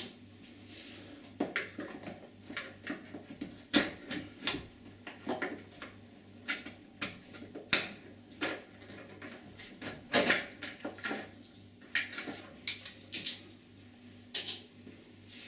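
Scattered sharp clicks and knocks of hard plastic as glazing packers are worked loose from a uPVC door frame with a scraper and set down.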